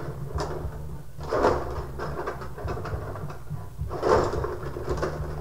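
Rod hockey game in play: the players' control rods sliding and rattling in the table, with scattered clicks of the puck and figures and two louder rushes of sliding noise, about a second in and about four seconds in.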